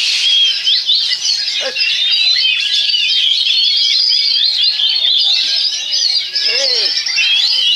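Many caged oriental magpie-robins (kacer) singing at once in a songbird contest. It is a dense, unbroken mix of rapid shrill whistles, chirps and trills with no pauses.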